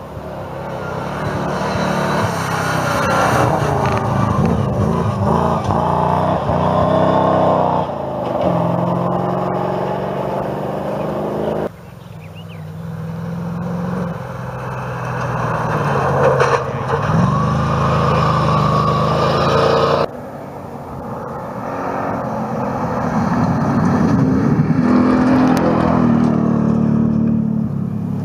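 Rally truck engines running hard on a gravel stage, their pitch rising and falling with the revs and gear changes. The sound changes abruptly twice, about 12 and 20 seconds in, making three separate passes.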